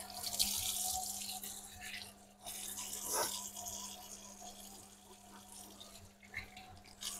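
Kitchen tap running into a steel sink as a carrot is rinsed under the stream, the water splashing off hands and vegetable. The flow is strongest at first, breaks off briefly about two and a half seconds in, then runs on more softly.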